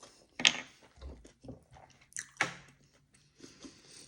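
A person chewing food close to the microphone, with a few sharp clicks and knocks, the loudest about half a second in and another about two and a half seconds in.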